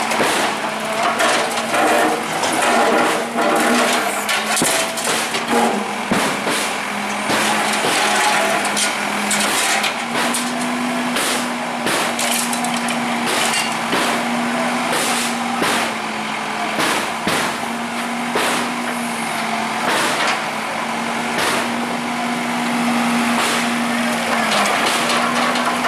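Bulldozer engine running steadily under load, with many sharp cracks and knocks of building debris breaking and falling as the structure is demolished. The engine pitch steps up slightly about ten seconds in.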